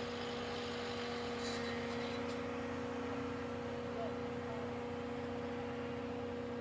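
Excavator diesel engine running steadily, a constant even hum.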